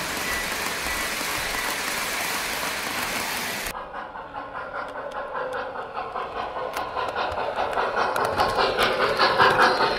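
Model trains running on three-rail track: a train rushing close past, then a model steam locomotive approaching with a rhythmic clatter that grows louder as it nears.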